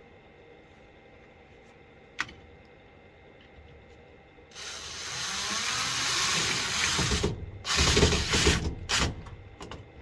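Cordless power drill running into a wooden 2x4 to mount a light fixture: one long run of nearly three seconds, then several short spurts. A single faint click comes before it.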